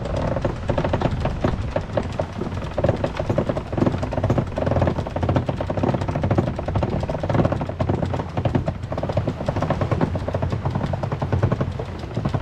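Sailboat winch clicking rapidly as its handle is cranked, taking in the keel-canting line to cant the keel further to windward, over the rush of wind and water.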